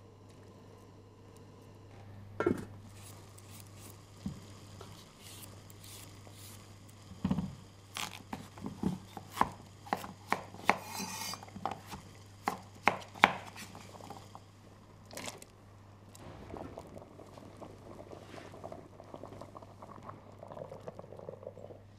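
Kitchen work sounds: a chef's knife chopping potatoes on a wooden cutting board, sharp knocks that come in a quick run in the middle, with pots and utensils clattering, over a steady low hum.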